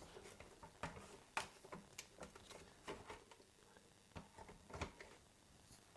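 Faint, scattered clicks and taps of barn doors being handled and slotted onto a Fresnel light attachment, its latches being moved.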